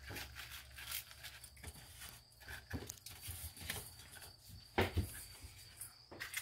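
Hands rubbing salt into cut ryukyu (hasuimo taro) stalks, an irregular rustling and squishing, with a short thump about five seconds in.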